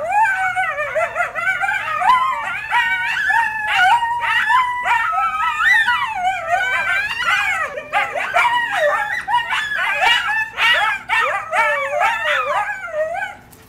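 A group of coyotes yipping and howling together, many wavering calls overlapping, rising and falling in pitch, then stopping abruptly near the end.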